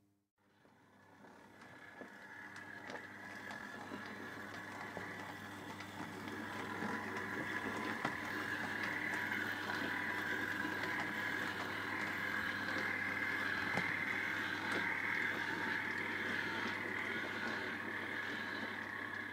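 OO gauge model train running along the track: a steady whirring rumble of motor and wheels with scattered light clicks, growing louder over the first several seconds and then holding steady.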